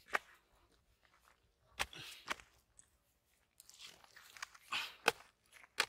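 Dry, cracked mud clods crunching and crumbling as they are trodden on and broken apart, in scattered separate crunches with short quiet gaps between them.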